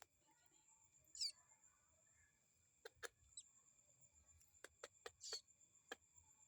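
Faint begging chirps from a young ciblek (bar-winged prinia) chick being fed: two short high chirps sweeping down, about a second in and near the end, with several sharp clicks between them and a steady faint high whine underneath.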